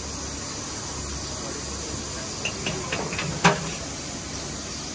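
Steady hiss with a few light clicks, then one sharp knock about three and a half seconds in.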